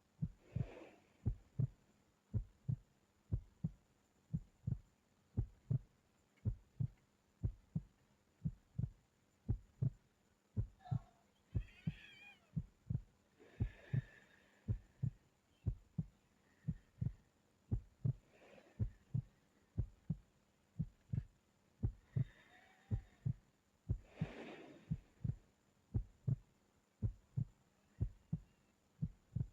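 A steady, even heartbeat of low, regular thumps, with now and then a soft breath of a sleeping person.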